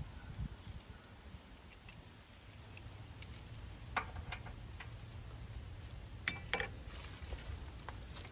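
Small metal parts being handled and fitted together: scattered light clicks and taps, with a sharper click about four seconds in and two ringing metallic clinks a little after six seconds, over a low steady rumble.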